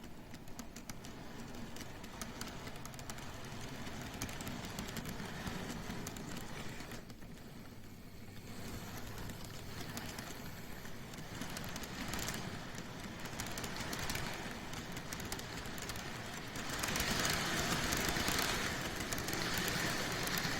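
N-gauge model E231-0 series train running on the track: a steady motor whir with fine clicking from wheels over the rail joints, growing louder about three-quarters of the way through as it comes closer.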